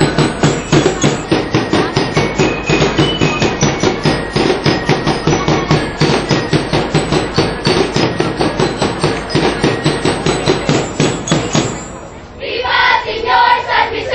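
Street-dance percussion band of drums beating a fast, even rhythm that stops about twelve seconds in; a group of voices then starts chanting together.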